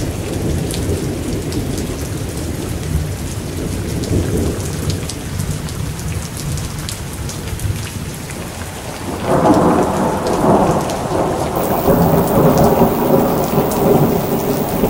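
Thunderstorm: rain falling steadily under a low rolling rumble of thunder. About nine seconds in, a louder, fuller peal of thunder swells and keeps rolling.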